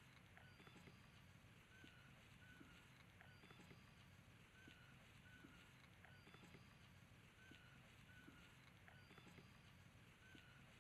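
Near silence: faint outdoor background hiss with soft, high chirps and small ticks repeating about once a second.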